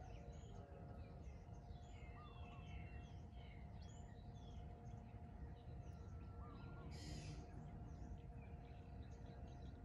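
Faint birdsong: many short chirps and whistles from small birds over a steady low hum, with a brief rasping burst about seven seconds in.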